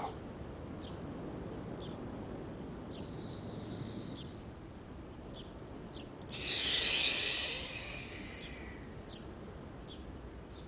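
A bird calling over and over, short high falling chirps about once a second, over a low steady outdoor noise. A little past the middle comes a louder, harsh high sound lasting about two seconds.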